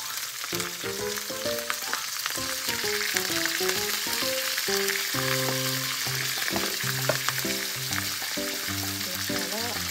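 Beef slices and napa cabbage sizzling in a hot cast-iron skillet, with background music playing.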